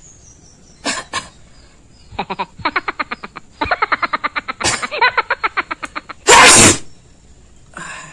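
A person sneezing after a hard build-up: two short breaths, then about four seconds of rapid, rhythmic gasping breaths, then one loud sneeze, with a weaker sound near the end. It is the kind of sneeze the person says is always very hard for them to get out.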